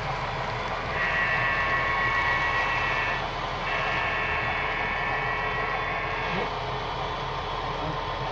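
A model diesel locomotive's sound-system horn blows two long blasts, the first about a second in and the second a moment after it ends. Under it runs the steady rolling rumble of model hopper cars on the track.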